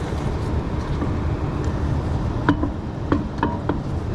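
A few short, sharp metallic clinks and knocks, clustered about two and a half to nearly four seconds in, as a spare wheel is worked onto a car's hub, over a steady low rumble.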